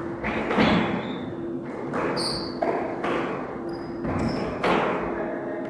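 A squash rally in a walled court: the ball is struck by rackets and hits the walls and floor with sharp, echoing knocks every second or so. There are a few short high squeaks and a steady low hum.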